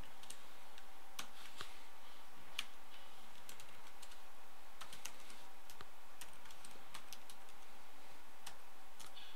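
Computer keyboard typing: irregular, scattered keystrokes over a steady background hiss.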